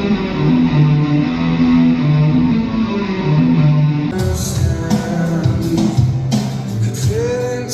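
Background music led by guitar, with a steady rock feel.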